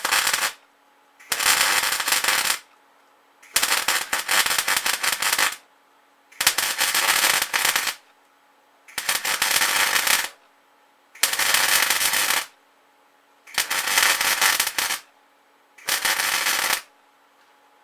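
MIG welder arc crackling in short runs of about one to two seconds, stopping and starting about eight times as the weld is laid in stitches. A faint steady hum from the machine runs in the gaps.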